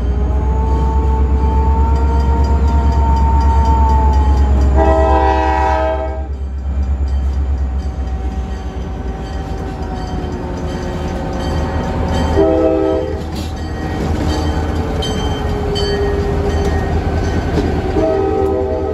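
Freight train's diesel locomotives approaching and passing close by, their engines running with a heavy low rumble that is loudest early on. The locomotive horn sounds a chord about five seconds in, again briefly about twelve seconds in, and once more near the end.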